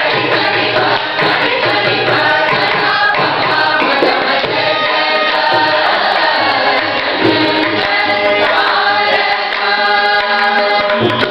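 A mixed group of men and women singing a devotional song together in Carnatic style, many voices on one melody.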